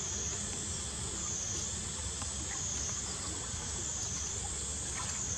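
Steady high-pitched insect chorus, its pitch dipping and rising in a slow wave about every second and a half.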